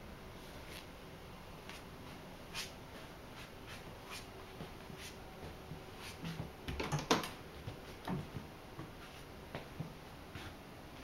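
Faint scattered taps and clicks of someone moving across a wooden floor while holding the camera, about one a second, with a busier cluster of louder clicks about seven seconds in.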